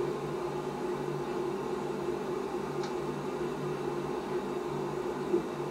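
Near-quiet room tone: a steady low hum with hiss, and one faint tick about three seconds in.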